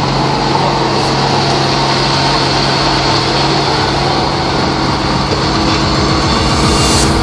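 JCB 8026 mini excavator's diesel engine running at a steady speed.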